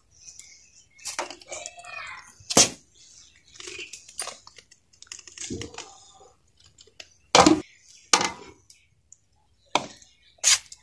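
Steel utensils knocking and scraping against steel plates as thick, sticky besan barfi mixture is emptied from a steel pot and spread with a spoon, with about five sharp metallic knocks spread through and softer scraping between them.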